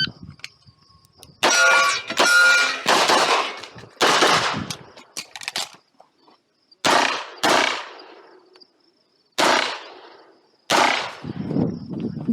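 A shot timer's start beep, then about ten handgun shots fired in quick groups of one to four with pauses between, the first group followed by a metallic ring.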